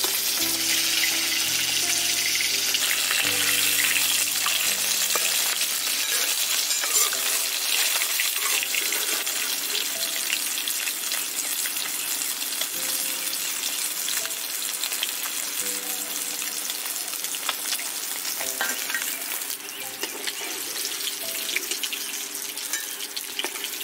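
Fish steaks frying in shallow mustard oil in a wok, a steady crackling sizzle. It turns a little quieter for the last few seconds.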